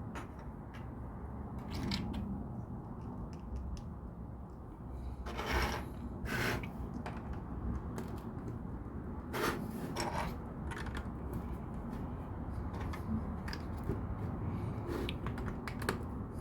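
Scattered small clicks and a few short rustling scrapes of objects being handled, over a steady low hum.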